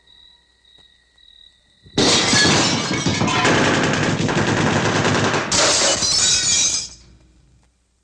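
A loud burst of crashing, crackling noise, about five seconds long in two surges, after a faint high steady tone.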